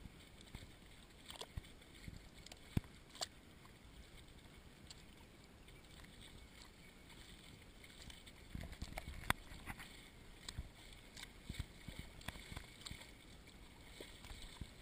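Boots walking through soft, wet estuary mud, heard as faint, scattered clicks and sucking sounds. A low rumble sets in about halfway through.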